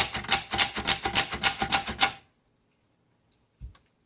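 Manual portable typewriter (a 1938 Royal Junior) being typed on quickly: a rapid run of typebar strikes, about eight a second, that stops about two seconds in, followed by a single faint click near the end.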